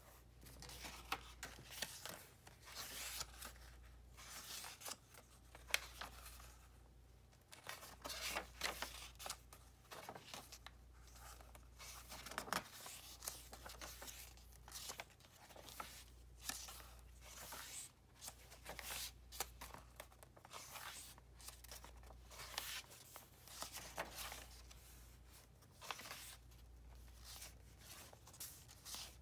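Pages of a handmade journal being turned one after another: stiff coffee- and tea-stained paper sheets rustling and flapping softly, with hands brushing over the pages.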